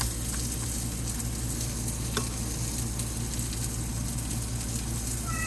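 Chicken patties sizzling steadily in a frying pan, with a few light clicks. A cat meows briefly near the end.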